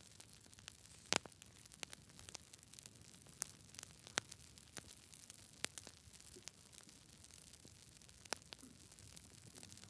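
Wood campfire crackling: scattered sharp pops and snaps over a faint steady hiss, the loudest snaps about a second in, near four seconds, near five and a half seconds and a little after eight seconds.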